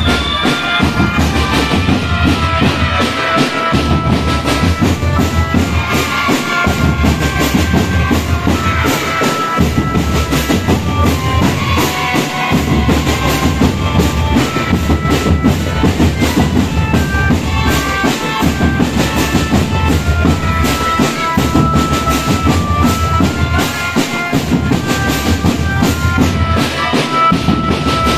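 Marching drum band playing: a dense beat of snare and bass drums under a stepping melody line.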